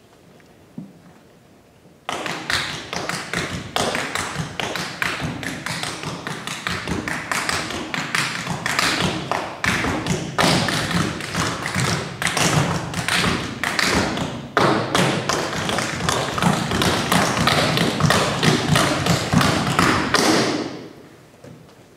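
Rapid, irregular tapping and thudding that starts suddenly about two seconds in, runs densely and loudly, and dies away shortly before the end.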